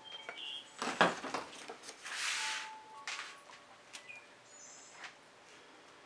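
Plastic squeeze bottle squirting fluid acrylic paint onto a canvas, with a short hissy sputter of air and paint from the nozzle. A sharp knock comes about a second in, and a few brief high squeaks are scattered through.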